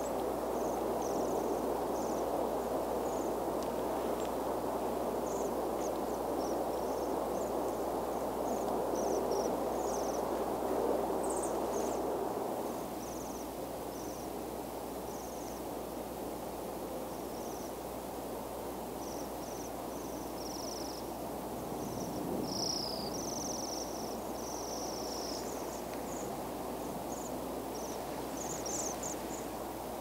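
A flock of Bohemian waxwings calling: many short, high, thin trills, scattered and overlapping, over a steady low background rush that drops in level about twelve seconds in.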